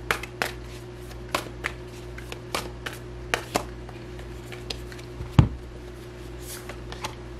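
Large tarot deck being shuffled by hand: irregular card clicks and slaps, with one louder low thump about five seconds in, over a steady low hum.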